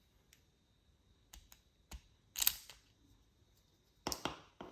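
Small sharp clicks and taps of the hard plastic key fob case halves being handled just after they were prised apart. The clicks are scattered, with a brief louder scrape about two and a half seconds in and a quick run of clicks near the end.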